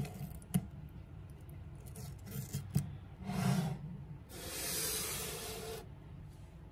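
A few crinkles and sharp clicks as a foil seal is peeled off a plastic jar. Then two scraping rubs, the longer and louder one lasting about a second and a half from around four seconds in, as the jar is slid across a wooden tabletop.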